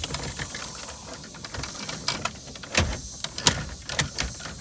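Scattered clicks and knocks as the radio and its dash parts are handled and pushed into place, with a few sharper knocks in the second half.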